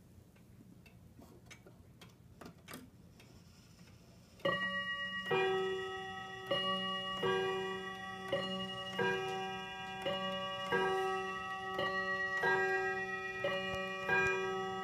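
8-day weight-driven steeple wall clock ticking faintly, then about four and a half seconds in its hammer starts striking the chime rods, a little under one blow a second, each stroke ringing on and overlapping the next.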